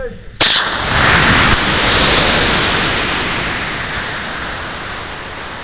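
Rocket motor igniting about half a second in with a sudden loud blast, then the rushing noise of the motor burn and air rushing past, heard from a camera riding on the rocket during liftoff; the noise slowly fades as the rocket climbs away.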